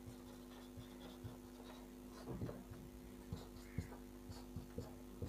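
Marker pen writing on a whiteboard: faint short scratching strokes and taps, a denser run of strokes about halfway through, over a steady low electrical hum.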